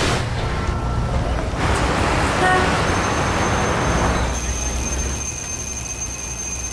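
Street traffic ambience: a steady low rumble of vehicles, with a brief car horn toot about two and a half seconds in and a faint steady high whine coming in soon after.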